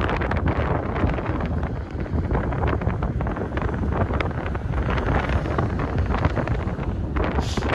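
Strong wind buffeting the microphone in a continuous, gusting rumble, with a brief higher hiss near the end.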